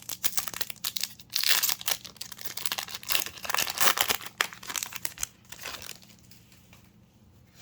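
Foil booster-pack wrappers crinkling and tearing as packs of trading cards are ripped open and handled, in dense flurries for about six seconds, then dying away near the end.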